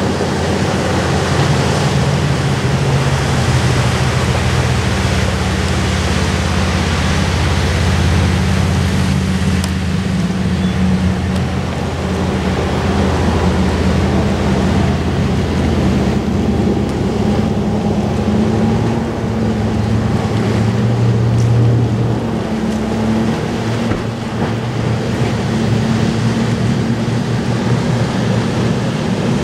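Fire boat's engines running hard while its water-cannon monitor sprays: a steady engine drone whose pitch shifts a little now and then, under a constant rushing noise.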